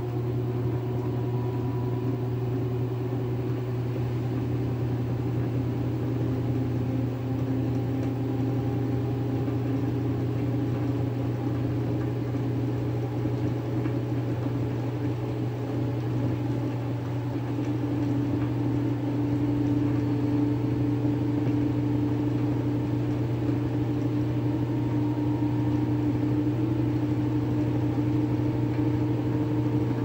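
Direct-drive top-loading washing machine in its spin cycle: the motor and spinning basket give a steady whirring hum with a few tones above it. The pitch creeps slightly upward and it grows a little louder about halfway through.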